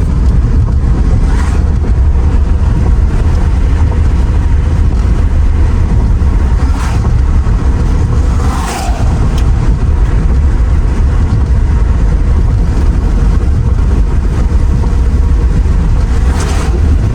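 Wind rushing in through an open side window of a moving Mercedes R129 SL500, heard inside the cabin as a loud, steady low rumble over the car's road noise.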